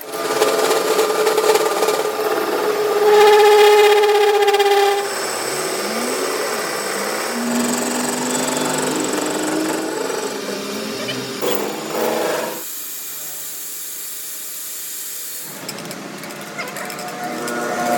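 Metalworking power tools running with steady whining tones and a few brief rising and falling whines; the sound changes abruptly several times.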